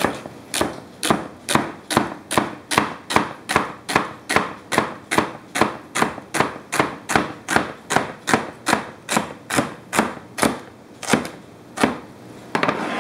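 Homemade O1 tool-steel chef's knife chopping a celery stalk on a plastic cutting board: a steady run of crisp chops, about three a second, each blade strike knocking on the board. The rhythm breaks off near the end, leaving only a few last chops.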